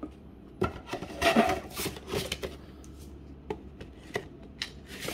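Cardboard Elite Trainer Box being handled: a scraping rub about a second in, then scattered light knocks and taps of cardboard.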